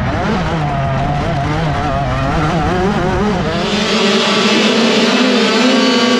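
A dirt bike engine revving up and down as it is ridden over a motocross track. About three and a half seconds in, this gives way to a pack of youth mini motocross bikes held at high revs at the start gate, their pitch rising slowly.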